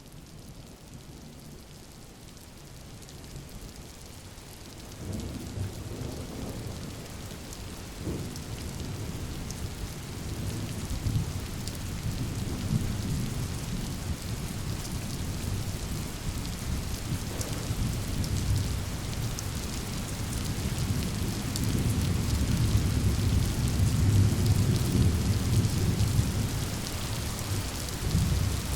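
Rainstorm: steady rain with rolling thunder. The rumble comes in about five seconds in and grows steadily louder.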